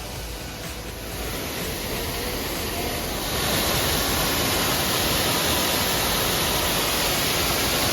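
Waterfall rushing: a steady hiss of falling water that grows louder over the first three seconds, then holds level.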